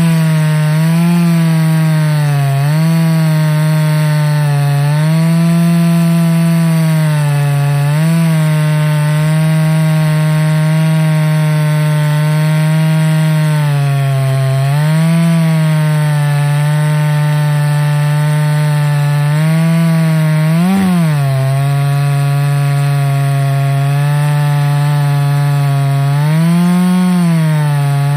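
Ported Husqvarna 288XP two-stroke chainsaw on an Alaskan chainsaw mill, ripping a white oak log into a slab at full throttle under heavy load. The engine note holds steady, with brief rises in pitch several times as the load eases, most sharply about 21 seconds in.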